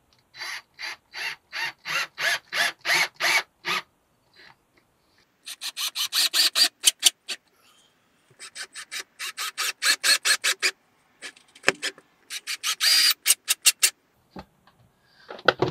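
Cordless drill driving screws through small metal brackets into a plywood subfloor. It comes in four runs of rhythmic clicking, slower in the first run and quicker in the later ones.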